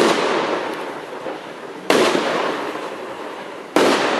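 TXB673 Triplex consumer fireworks firing in sequence: three shots burst in the air about two seconds apart, each a sharp bang with a long fading tail.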